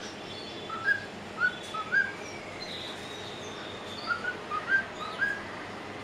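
White-faced cockatiel whistling in two short phrases of quick, upward-flicking notes: four notes about a second in, then about six more around four to five seconds in.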